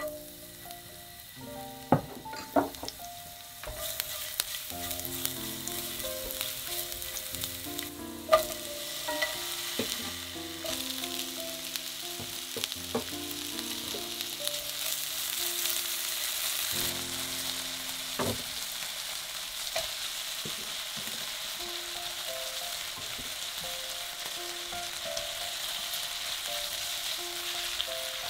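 Minced garlic, then sliced onion and bacon, sizzling in olive oil in a nonstick frying pan as they are stir-fried. The sizzle swells to a steady hiss after a few seconds, and a spatula clicks against the pan now and then.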